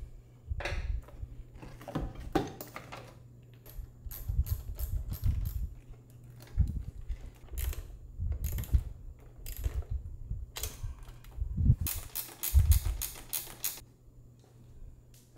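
Irregular clicks, knocks and rattles of hand tools and small car parts being handled, with a quick run of evenly spaced clicks about two seconds before the end. A faint low hum runs under them.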